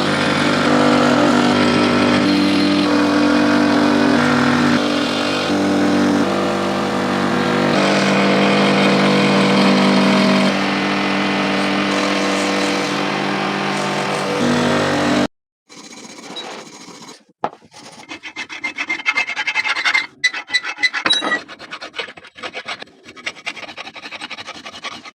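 Metal-restoration work on a pipe wrench. For about fifteen seconds a power tool runs loud and steady, its pitch shifting in steps. It then cuts off suddenly, giving way to quieter, rapid scraping and rubbing strokes on metal with scattered clicks.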